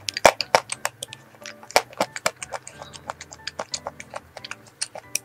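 Close-miked eating of a Krispy Kreme iced donut: irregular sharp mouth clicks and smacks from biting and chewing, several a second, over soft background music.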